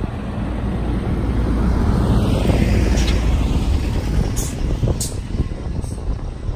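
Large tour coach driving past close by, its diesel engine and tyres rising to a peak about two to three seconds in and then fading as it moves away. A few short, sharp high clicks follow near the end.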